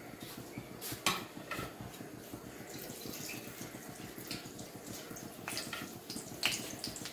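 Hot oil sizzling and crackling faintly in a kadai, with scattered sharp pops. Near the end, dry red chillies dropped into the oil for the tempering set off a short cluster of pops.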